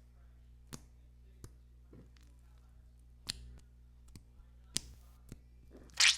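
Flour-and-body-wash slime being squeezed and pressed by hand for ASMR: scattered soft clicks and pops, with a louder pop near the end.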